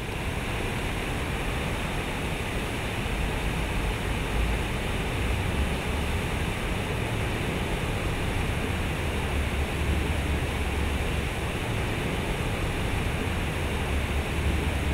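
Water falling steadily from a large concrete sculpture fountain and splashing into its pool, a continuous rushing wash with a low rumble underneath.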